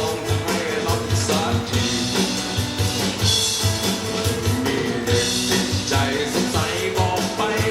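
Rock-style song with singing, drums and guitar and a steady beat, played back through Genesis Naptune GT65.2 component speakers on their original passive crossover with no EQ.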